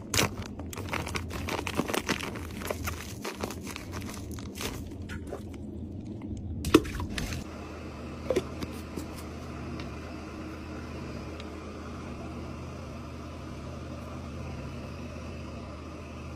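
Plastic bait sachet being crinkled and torn open by hand: a run of crackling rustles, with one sharp click about seven seconds in. After that only a steady low background hum remains.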